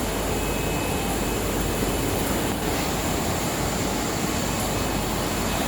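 Steady, even rushing noise of running processing-line machinery, with no rhythm or separate knocks.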